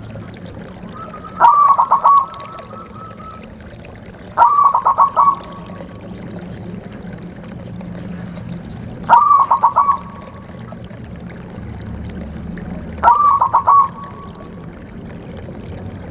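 Zebra dove (perkutut) cooing: four short phrases of rapid staccato notes, each under a second, a few seconds apart, over a faint low steady hum.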